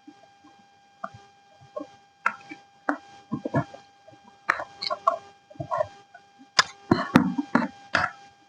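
Walkie-talkie packaging being handled and opened: irregular clicks, knocks and rustles of cardboard and plastic, busier in the second half. A faint steady high tone runs underneath.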